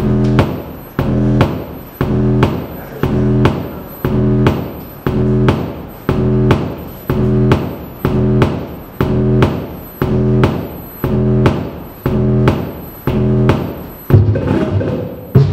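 Handmade electronic noise instruments playing a looping, pitched low pulse, about two hits a second, each hit decaying. Near the end the loop breaks up into a rougher, busier texture.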